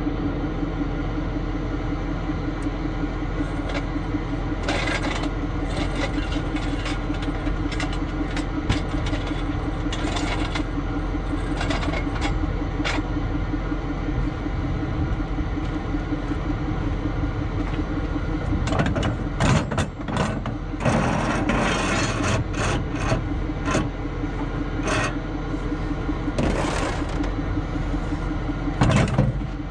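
Tow truck's engine idling steadily, with scattered clicks and scrapes over it, a cluster of them about two-thirds of the way through and a louder knock near the end.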